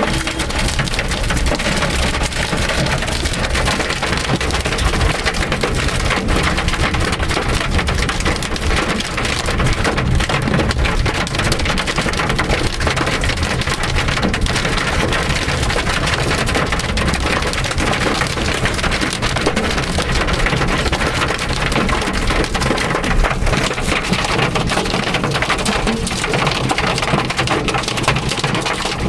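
Hail hitting a moving car's roof and windscreen, heard from inside the car: a loud, steady clatter of countless small impacts.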